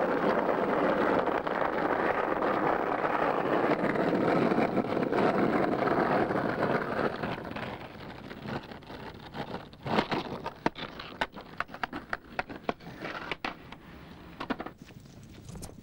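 Skateboard wheels rolling over rough tarmac in a steady rumble. About halfway through it drops away to a quieter run of sharp clicks, knocks and scrapes.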